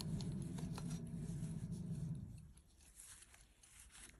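Gloved hands handling a silver pair-cased pocket watch: low rubbing and rustling with small clicks of the cases. After about two seconds the handling stops and only faint clicks remain.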